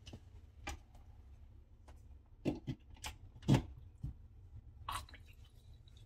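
Handling of a plastic pet water fountain: several faint, irregular clicks and knocks, with the louder ones near the middle, over a faint low hum.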